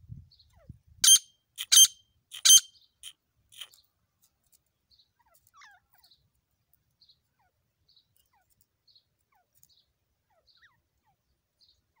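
Grey francolin calling: three loud, harsh, ringing notes about two-thirds of a second apart, then a few softer notes. After that, faint high chirps repeat about once a second.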